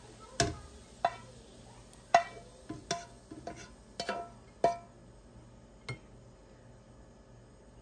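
A spatula knocking and scraping against a frying pan, about nine irregular clinks with a short ring, as fried rice is scraped out of the pan onto a plate; the knocks stop about six seconds in.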